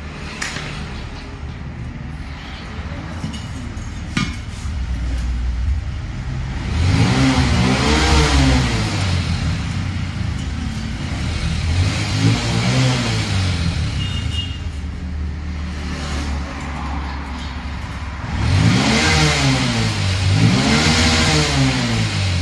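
A motor engine revving up and back down several times over a steady low running hum, with two revs close together near the end.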